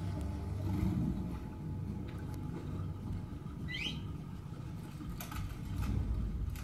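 Film soundtrack recorded off the speakers with a smartphone: a steady low rumble with one short rising chirp about four seconds in and a few faint clicks near the end.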